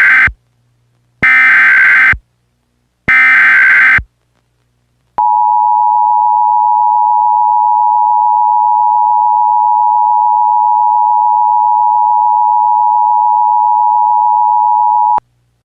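Emergency Alert System signal: the last two of three short SAME header data bursts, spaced about a second apart, which encode the alert, then the two-tone EAS attention signal held steady for about ten seconds and cut off abruptly, announcing that an emergency message follows.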